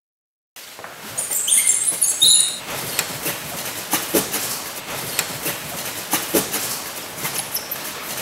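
Electronic intro soundtrack: after a brief silence, crackling noise with short high chirps, then a sharp click repeating about once a second over fine crackle.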